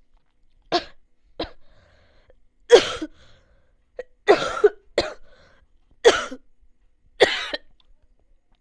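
A person coughing repeatedly: a string of about seven separate coughs with short pauses between them, the loudest just under three seconds in.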